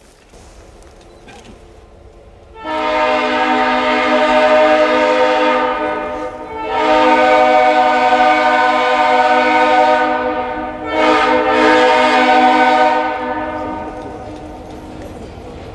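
Steam locomotive whistle blowing three blasts: two long ones and a shorter third that trails away.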